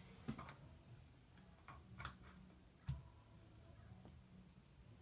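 Near silence with a few faint clicks and taps of small tools being handled, the clearest a little before three seconds in, over a low steady hum.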